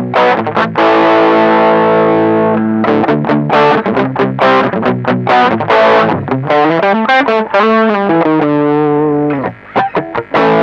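Electric guitar played through a TC Electronic Dark Matter distortion pedal: quick picked notes, a held distorted chord ringing for about two seconds, then a riff with sliding, bending notes and a short break near the end. The pedal's bass control is being tried, and the reviewer finds it adds only limited low end.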